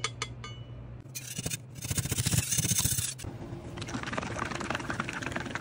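A metal scraper scraping a failed resin 3D print and its supports off the printer's build plate. It opens with a few sharp clicks, grows loud and rough about a second and a half in, and then settles into a quieter, steady rasping.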